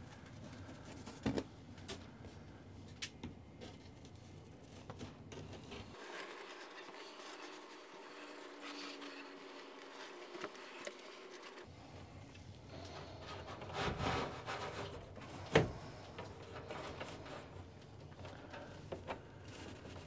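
Mineral-fibre drop-ceiling tile rubbing and scraping against the ceiling grid as it is worked back into place, with a few sharp knocks near the end.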